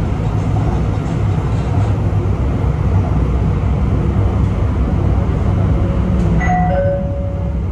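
MRT Putrajaya Line train running along an elevated viaduct, heard from inside the cab-front car as a steady low rumble of wheels and motors on the track. A few short high tones sound near the end.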